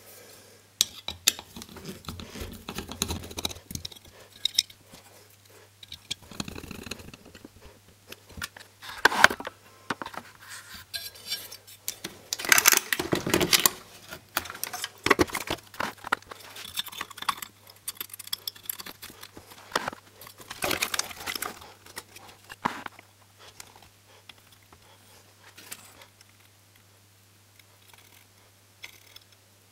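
Irregular clicks, knocks, scrapes and metallic rattles of a CRT TV's chassis, circuit board and the vertical IC on its aluminium heatsink bracket being handled as the IC is fitted into the board, with the loudest clatters about a third and two thirds of the way in. It grows quieter near the end.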